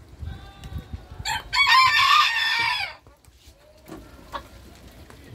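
Booted bantam rooster crowing once, a loud crow of about a second and a half that drops in pitch at the end. Softer calls come just before it and faint clucks follow.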